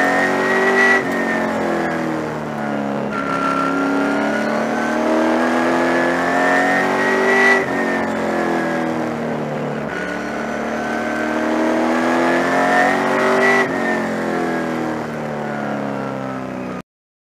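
Super late model race car's V8 engine heard from inside the car, running hard on a short oval. It winds up slowly along each straight and drops sharply as the driver lifts for the turn, three times, then cuts off suddenly near the end.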